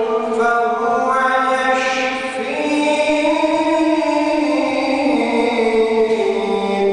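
A man's solo voice reciting the Quran in the melodic mujawwad style, holding long melismatic notes that glide slowly up and down in pitch.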